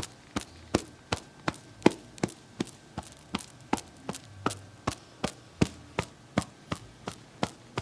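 Massage tapping: sharp, even taps at a steady pace of a little under three a second.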